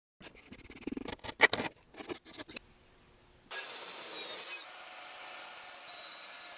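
A string of sharp metal clicks and clanks from a wrench working on fittings by the engine, then from about halfway a steady high whine of a power saw cutting through steel.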